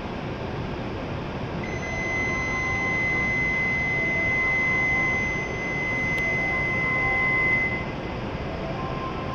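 A steady, high electronic signal tone held for about six seconds on a Shinkansen platform, over the steady hum of the W7 series train standing at the platform before departure.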